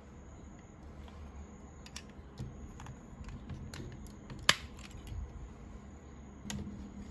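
Plastic parts of a DX King-Ohger combining robot toy being handled and fitted together: scattered light clicks and rattles, with one sharp snap about four and a half seconds in.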